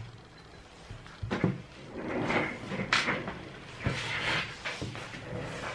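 A series of knocks and clatters of things being handled, with a cupboard door opening and closing among them.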